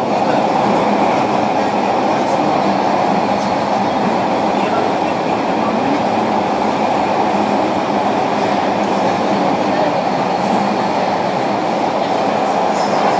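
Steady running noise inside a JR Kyushu 305 series electric train's motor car: wheels on rail and the car's running gear at an even pace.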